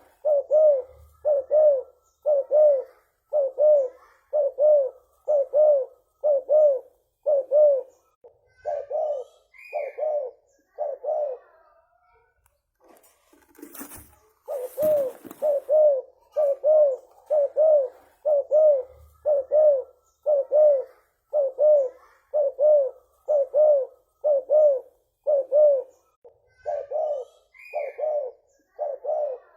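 Spotted dove (tekukur) cooing: a long run of short, low coo notes, about one and a half a second. They break off for a couple of seconds midway, where a brief rustling noise sounds, then go on.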